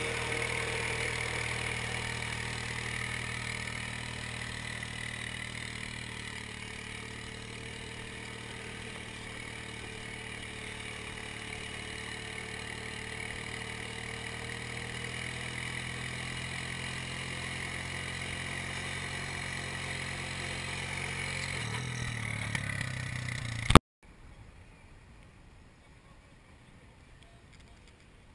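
Four-wheel ATV engine running steadily for most of the stretch, its pitch sinking slightly. About 24 s in there is a sudden loud click, after which only faint background hiss remains.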